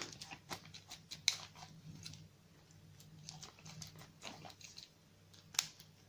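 Scattered small metallic clicks and knocks of a euro profile lock cylinder and its key being handled and twisted, the sharpest click about a second in and another near the end, over a faint steady low hum.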